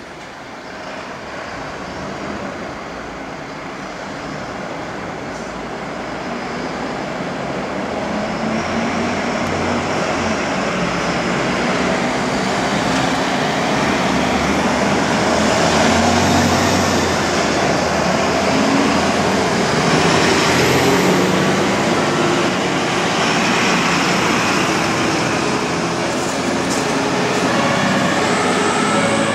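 Fire-service trucks and an ambulance pulling out and driving past, their engine and tyre noise building steadily louder. Near the end a siren starts up.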